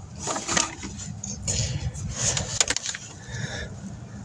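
Hand tools clinking and scraping on metal while work goes on at a car's engine belt and pulleys, with a few sharp clanks about half a second in and again past the middle, over a low steady rumble.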